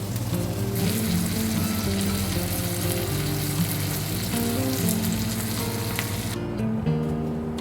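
Food sizzling as it fries, a dense crackling hiss that starts about a second in and cuts off abruptly near the end, over background music.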